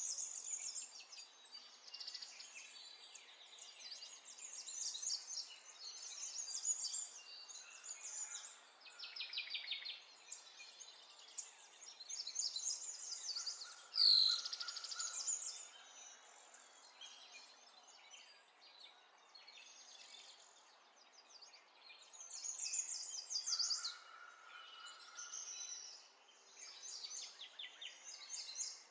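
Birds chirping and trilling, many short rapid phrases overlapping, over a faint steady hiss, with one louder falling call about halfway through.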